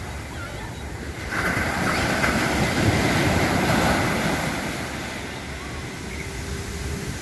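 Sea waves on a beach: a wave breaks and washes up, swelling a little over a second in and fading away by about five seconds, over a steady low wind rumble on the microphone.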